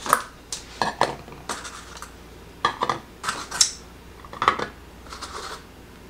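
Eggs being set one at a time into the perforated metal steamer tray of a microwave egg cooker, with a string of short knocks and clinks as the shells meet the metal and each other.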